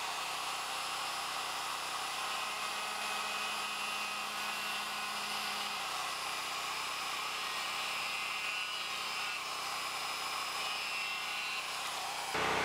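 Handheld electric die grinder running at a steady high speed, its bit boring into soft carved wood to sink a pupil hole in an eye. The sound is an even, unchanging high whine with hiss.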